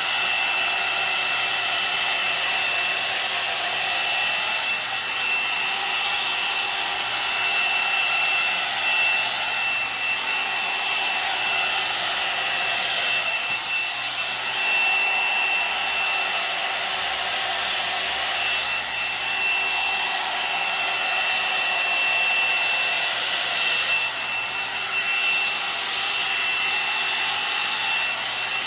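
Kommok hot air brush (hair dryer brush) running on its high setting: a steady rush of air over a thin, constant motor whine. The rush swells and eases every few seconds as the brush works through long hair.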